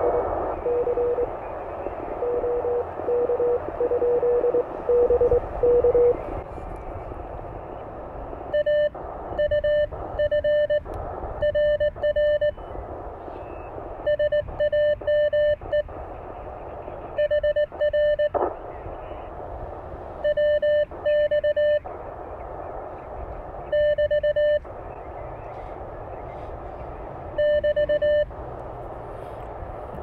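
Morse code from the Elecraft K1 transceiver's speaker. For the first six seconds a received CW signal keys in a band of receiver hiss. From about eight and a half seconds the operator's own paddle-keyed sending comes as a louder, cleaner sidetone, in groups of characters with short pauses between words.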